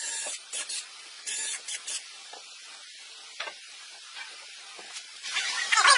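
Cordless drill running in three short bursts as it bores holes through a wooden planter base, then faint rubbing and small knocks. About a second before the end a louder, scraping sound begins, with a low thump.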